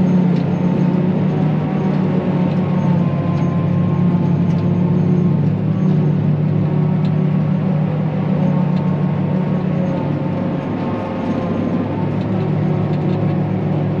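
Tractor engine running steadily under load, a constant low drone.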